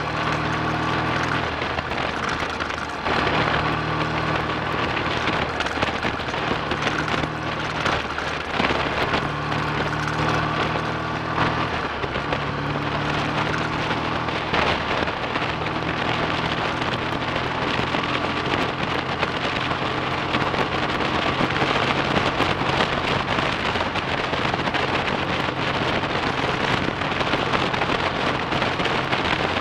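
Freshly rebuilt BSA A65 Thunderbolt's 650cc parallel-twin engine running on the road, its note shifting in pitch a few times, with heavy wind noise on the microphone.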